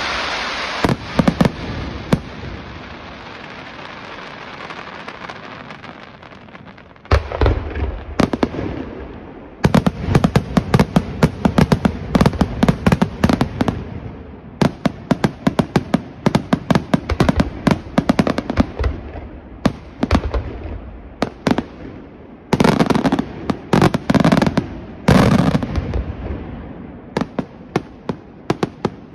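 Aerial fireworks display. It opens with a dense hissing and crackling from a barrage of white comets that fades away over several seconds. Then, from about seven seconds in, shells burst in rapid, irregular volleys of sharp bangs, with the heaviest clusters about ten and twenty-three seconds in.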